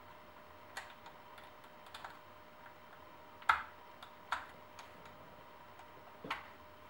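Scattered light clicks and taps of small hand tools, screws and plastic parts being handled during assembly. The sharpest click comes about three and a half seconds in, with two more near the end.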